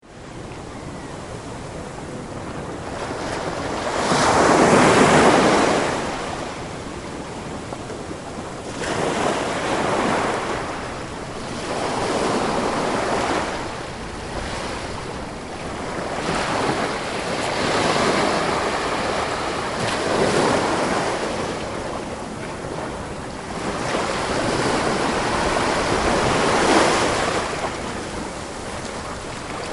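Ocean surf: waves breaking and washing in one after another, the rush swelling and fading every few seconds, loudest about five seconds in.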